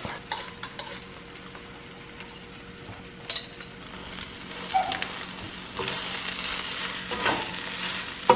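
Pasta, broccoli and red bell pepper sizzling in a frying pan while a spatula stirs pesto through them, with a few sharp clicks of the spatula against the pan. The sizzling and stirring get louder from about halfway.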